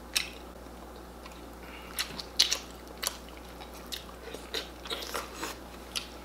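Wet, open-mouthed chewing and lip smacks from people eating chicken and fufu with egusi soup by hand, in a dozen or so short, irregular smacks.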